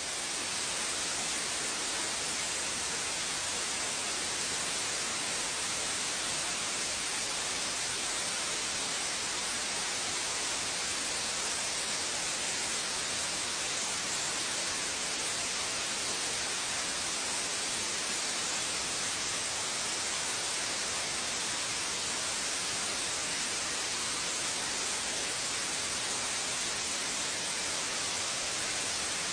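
Television static: a steady, even hiss that holds unchanged throughout.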